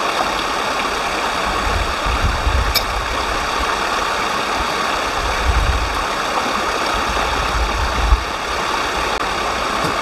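Mountain stream water running over rocks, a steady rushing, with a low rumble coming and going through the middle.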